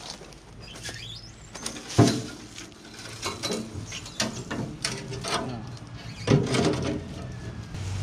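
Metal clanks and scraping as the rusty sheet-metal seat and fuel tank assembly of a 1957 Case 320 Terratrac bulldozer is wrestled into place, with a sharp knock about two seconds in and another about six seconds in.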